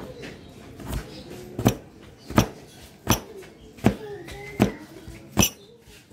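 Knife chopping on a cutting board: sharp, evenly spaced knocks, about one every three-quarters of a second, starting about a second in.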